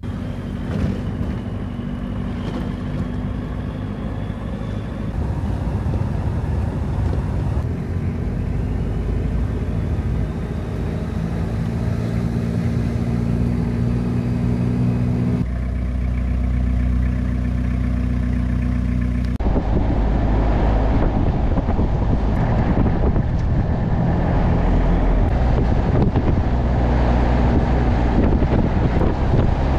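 A 4x4 camper's engine drones steadily while driving, with tyre and wind noise. The sound changes abruptly about 8, 15 and 20 seconds in, as separate driving clips are joined.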